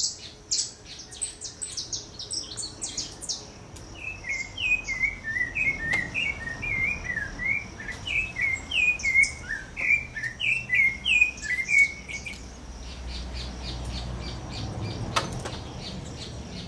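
Rufous-bellied thrush singing a run of short whistled phrases, each dipping and rising, from about four seconds in until about twelve. A quick series of sharp, high chirps comes before it, and faint high ticking and a single click come after.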